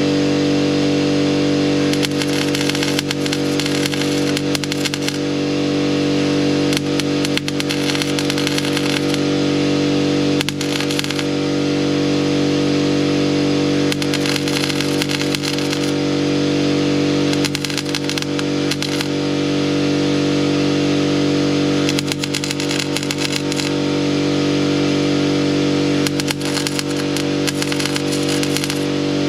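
Welding on thin, rusty sheet steel: the arc crackles and pops in about seven short runs of one to three seconds each, over a steady motor hum. The pops are the arc blowing holes through the steel.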